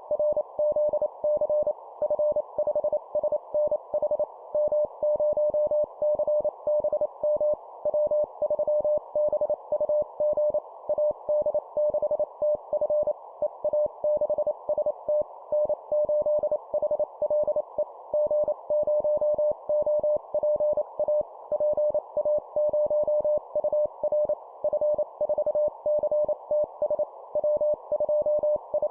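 Morse code (CW) tone at a single steady pitch, keyed in fast dots and dashes sending amateur radio call signs at 25 words per minute, over a constant band of hiss.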